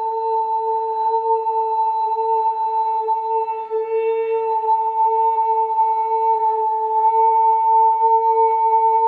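Music: one long steady tone held at a single pitch with soft overtones above it, wavering gently in strength.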